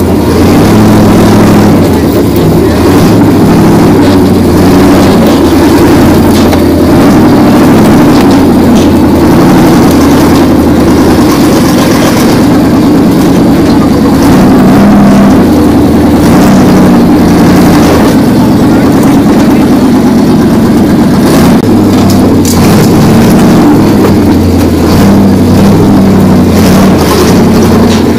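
Monster truck's big engine running loud under load as the truck climbs onto and crushes a car, its pitch shifting up and down every second or two.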